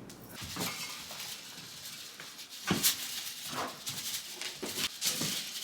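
Household objects being handled and moved: a few separate short rustles and light knocks.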